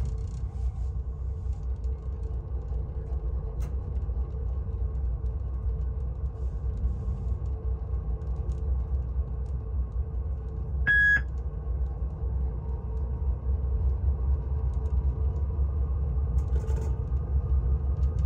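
GE diesel freight locomotive idling at a standstill: a steady low rumble with a faint hum. About eleven seconds in comes one short, high electronic beep.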